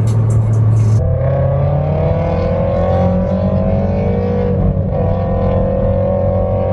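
Subaru flat-four boxer engine pulling under acceleration, its pitch rising steadily, dropping briefly about halfway through as it shifts gear, then rising again.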